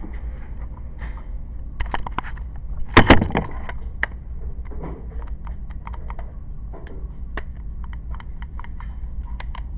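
Handling noise as the camera is moved and set down: a loud clatter of knocks about three seconds in, then scattered small clicks and taps, over a steady low hum.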